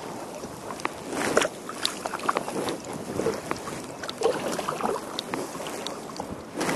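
Kayak paddle strokes in calm water: the blade dipping and splashing, with many small drips and trickles of water running off the paddle.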